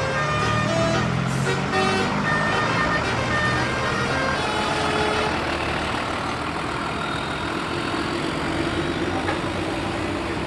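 Tour bus engine running loud and close, with short musical horn notes at changing pitches over the first few seconds, in the manner of a telolet horn. A steadier low hum takes over in the second half.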